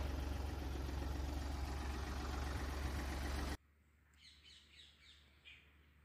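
Tractor engine running steadily with a low hum while pulling a seed drill through a dry field. It cuts off abruptly about three and a half seconds in, leaving near silence with a few faint bird chirps.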